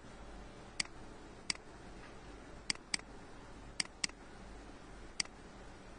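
Computer mouse button clicking: seven sharp clicks spread out, two of them coming in quick pairs, over a low steady hum.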